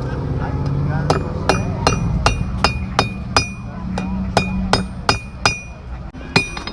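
Blacksmith's hammer striking iron on an anvil at a steady pace, about two to three blows a second, each blow with a short metallic ring. A steady low hum runs underneath.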